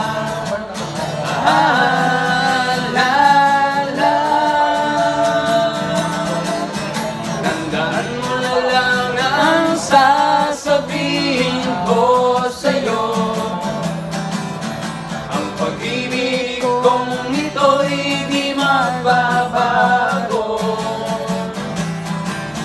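A man singing a Tagalog love song live, accompanying himself on a strummed acoustic guitar.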